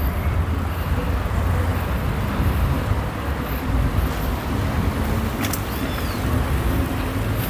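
Steady low rumble of road traffic, with a faint click and a short chirp about five and a half seconds in.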